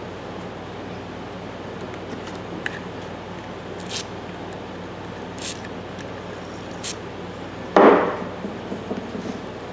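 Light metal clicks of a screwdriver worked in a rust-seized tap handle clamped in a vise, then one sharp, louder metal clunk near the end, followed by a few small rattles.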